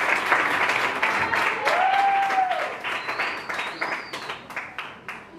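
Small audience applauding, with a couple of long rising-and-falling cheers and a high whistle. The applause fades out toward the end.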